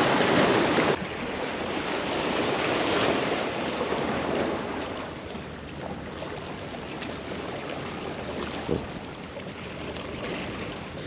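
Small sea waves washing and breaking against rocks of a breakwater, a steady rushing wash, louder in the first second, with wind noise on the microphone.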